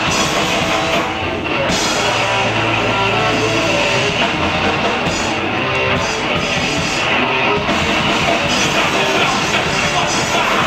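Hardcore punk band playing a fast thrash song live, loud, with distorted electric guitar, bass and drum kit.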